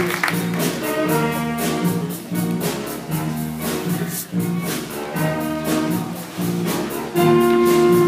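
Live band music accompanying a show choir performance, with a steady beat of about two hits a second. A louder held chord comes in near the end.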